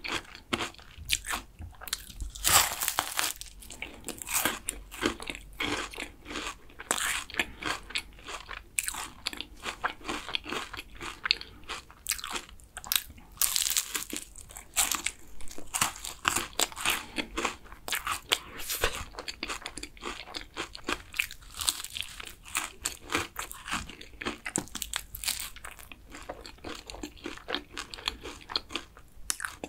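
Close-miked bites into a crisp, flaky kouign-amann pastry: crackling crunches of the caramelised layers, then chewing. Several bouts of louder crunching, the loudest a few seconds in and again about halfway.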